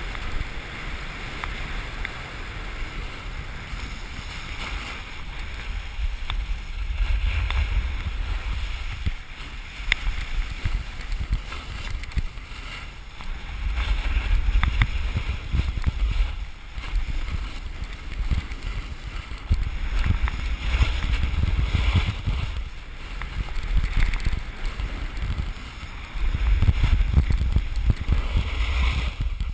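Wind buffeting the camera's microphone in low, rumbling gusts that swell and fade every few seconds, over the steady scraping hiss of a snowboard sliding and carving on groomed snow.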